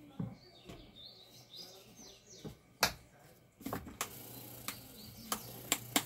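Sharp clicks and taps of plastic fan parts being handled and fitted, the loudest about three seconds in, with several more near the end. Faint high chirps in the first two seconds, and a low hum comes in about midway.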